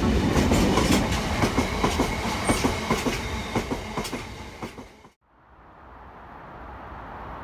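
Open box wagons of a freight train passing at speed, wheels clattering over the rail joints in a fast run of clicks and knocks. The clatter fades and then cuts off sharply about five seconds in, after which a faint, steady hiss slowly rises.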